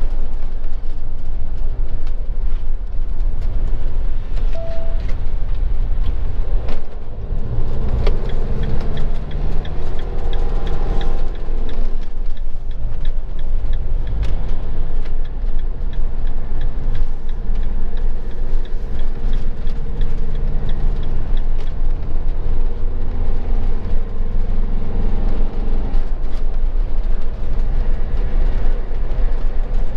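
Motorhome engine and road noise heard inside the cab: a steady low rumble, with the engine note rising and falling. Through the middle, a regular ticking, the turn indicator.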